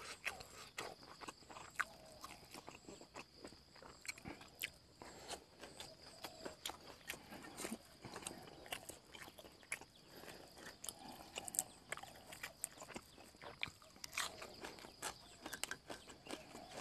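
Faint, irregular clicks of close-up chewing and lip smacking as a man eats minced-fish larb with sticky rice and fresh herbs.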